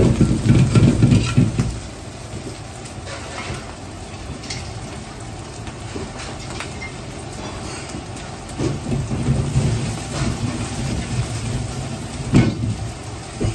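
Boiled noodles frying in oil in a large wok over a high gas burner: a steady sizzle over the burner's low rumble, which swells in the first two seconds and again from about eight and a half seconds in. Ladle and wok clank now and then, with a sharp clank about twelve seconds in as the wok is tossed.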